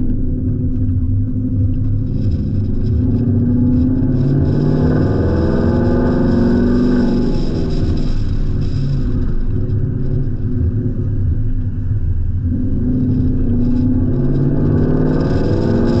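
Ford Mustang GT's V8 engine and exhaust under way, with the engine note rising twice as the car accelerates, about three seconds in and again near the end.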